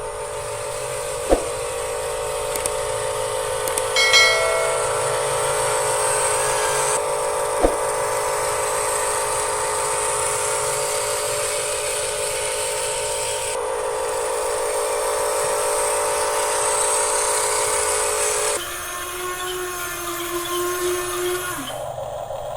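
Electric motors and gearing of a Huina RC construction model whining steadily, with a couple of sharp clicks. The whine changes character abruptly a few times and drops to a lower, thinner tone near the end.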